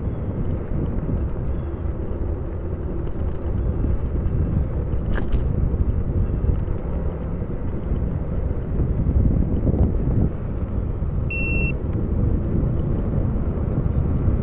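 Wind rumbling steadily on the microphone of a rider moving along a trail. Near the end there is a short, high electronic beep.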